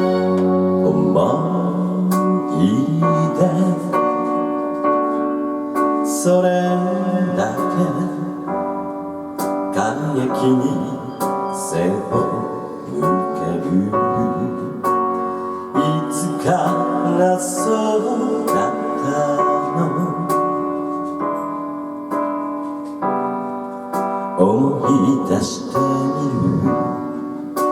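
Live pop music led by a keyboard, with held chords and a steady rhythm.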